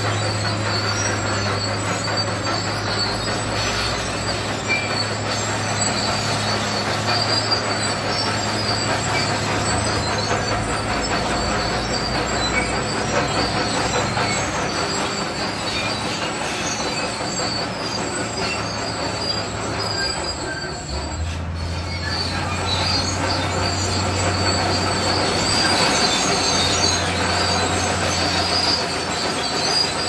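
Small crawler bulldozer working: its diesel engine runs steadily under load while the steel tracks squeal and clank over crushed rock fill. The engine note dips and changes about two-thirds of the way through.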